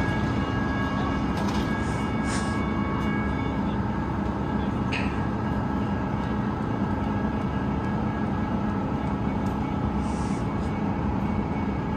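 Portland Orange Line MAX light-rail train standing at the platform, giving off a steady hum with several held tones. A few short hisses sound over it, about two seconds in and again near ten seconds.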